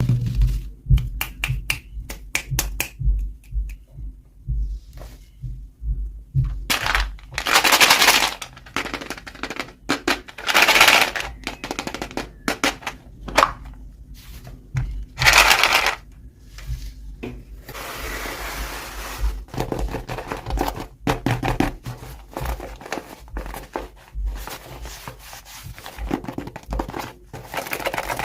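Hands unboxing small toys: many clicks and taps of plastic pieces being handled, with three loud bursts of crinkling packaging about seven, ten and fifteen seconds in.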